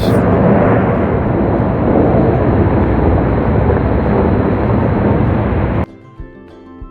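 Bellagio fountain's water jets rushing with a loud, steady rumble. It cuts off abruptly near the end, giving way to quiet music.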